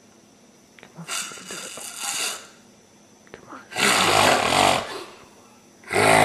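A person snoring: a softer breath about a second in, then two loud snores with a low buzzing vibration, the second starting near the end.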